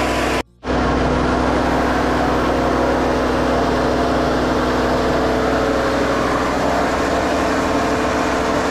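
Electric posho mill grinding maize into flour: a loud, steady roar of the motor and grinding mill with a constant hum. The sound drops out for a moment about half a second in, then carries on unchanged.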